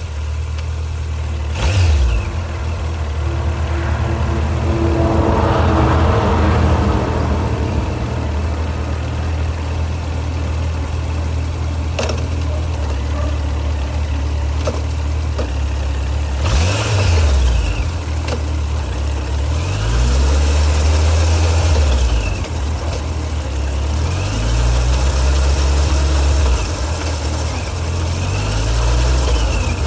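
Suzuki GSX1250FA motorcycle's inline-four engine idling, revved up several times, from brief blips to longer holds of a second or two, then dropping back to idle. It is being run after a fresh oil and filter change.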